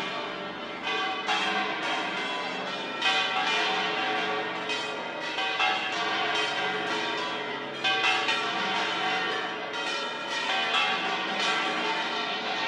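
Church bells pealing: many bells struck in quick, overlapping succession, their tones ringing on into one another without a break.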